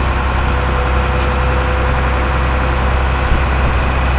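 Steady low mechanical drone of a running machine, with a steady high whine that joins about half a second in.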